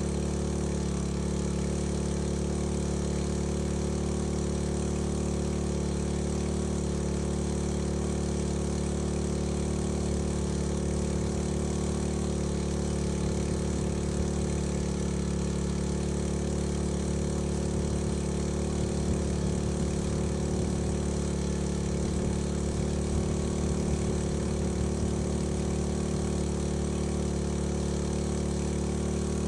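A small engine running steadily at a constant speed, with an even hiss over it.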